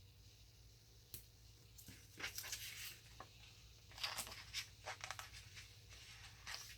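Paper craft pieces being handled: faint short rustles and tearing sounds, coming in clusters about two to three seconds and four to five seconds in.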